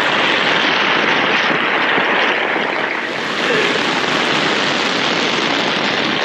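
Heavy monsoon rain pouring down, a steady loud rush of water noise.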